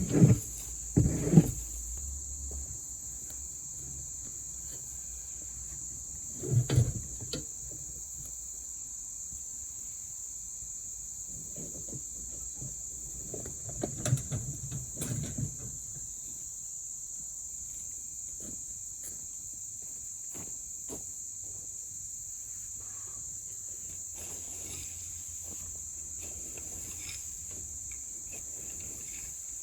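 Crickets chirring steadily in a high, even drone. Over it come a few loud thumps and knocks: two right at the start, one about seven seconds in, and a short run around the middle.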